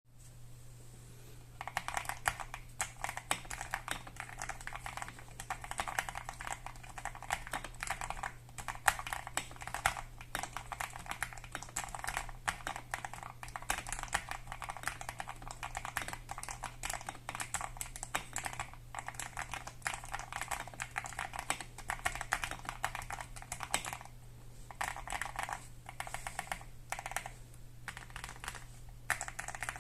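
Continuous fast typing on an Akko ACR Pro 68 mechanical keyboard with lubed Akko CS Crystal switches, lubed stabilizers, tape mod and foam mod. The keystrokes begin about a second and a half in and break off briefly a few times near the end, over a faint steady low hum.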